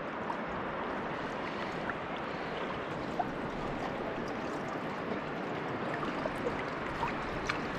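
Shallow river water running steadily close to the microphone, held at the water's surface, with a few faint ticks of droplets and small splashes.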